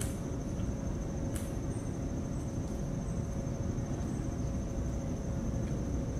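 An insect's steady high-pitched trill over a constant low rumble and a faint steady hum, with a short click about a second and a half in.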